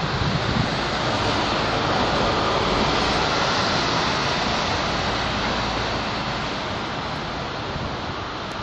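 Road traffic on a city street: a steady rush of engine and tyre noise that swells about two to three seconds in, then slowly fades.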